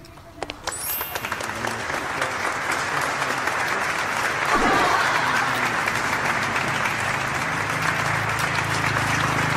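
Heavy rain falling, a dense steady crackling hiss of many drops that comes in suddenly just after the start and is loudest about halfway through.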